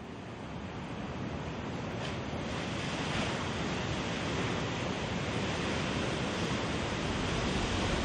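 Sea ambience of waves washing under wind, a steady rushing noise that swells gradually over the first few seconds and then holds.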